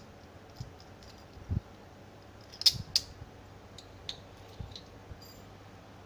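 Stainless steel chain handcuffs being handled: a low knock, then two sharp metal clicks about a third of a second apart near the middle, followed by a few lighter ticks and taps.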